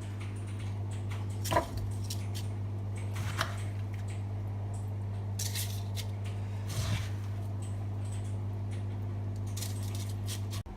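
Two spoons scraping and clicking as sticky chocolate-coated puffed rice is scooped and pushed into paper cupcake liners, in scattered short strokes. A steady low electrical hum runs underneath.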